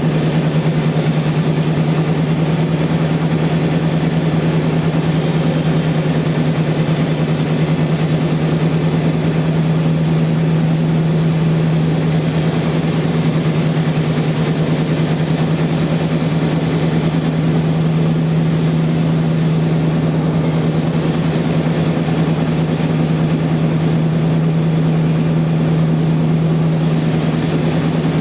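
Sawmill machinery running steadily: a loud, even engine-like drone that holds one low pitch throughout.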